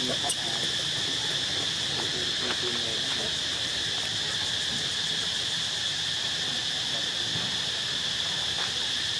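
Steady high-pitched insect chorus of cicadas or crickets, with a single sharp click just after the start.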